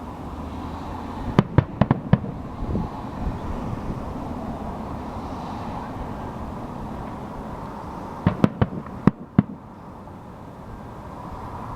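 Aerial fireworks bursting in two quick volleys of sharp bangs, about five a little over a second in and about five more near the end, over a steady background rumble.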